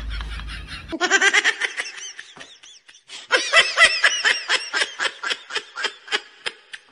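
High-pitched laughter in rapid pulses, in two long bouts with a short break about three seconds in, dying away near the end.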